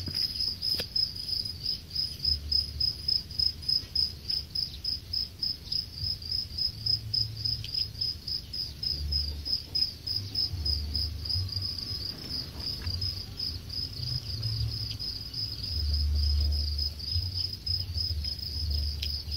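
A mass of farmed house crickets chirping together in an even, high pulsing trill of a few chirps a second. An intermittent low rumble sits underneath.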